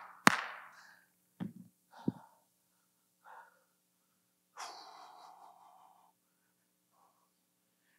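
A man's single hand clap, the last of a quick run of claps, then a couple of soft knocks and a long, heavy breath out close to the microphone about four and a half seconds in, over a faint steady hum.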